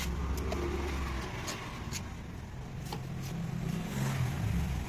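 A motor vehicle engine running with a low hum that shifts slightly in pitch, with a few sharp clicks.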